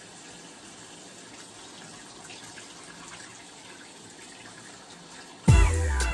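Bathroom sink tap running steadily. About five and a half seconds in, loud music with a falling tone cuts in suddenly.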